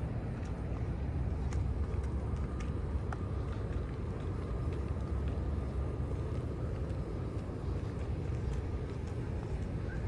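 Outdoor ambience: a steady low rumble with faint, scattered ticks.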